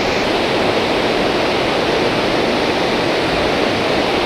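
Steady rushing of creek water flowing over rocks, an even unbroken wash of noise.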